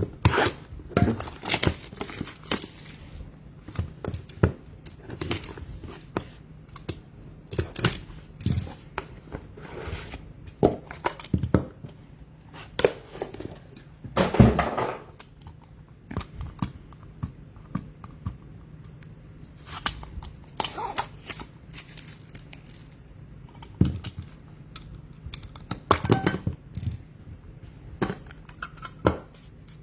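Trading card packs being torn open and their wrappers crinkled, with many short sharp clicks and taps of cards being handled; the longest tear comes about halfway through.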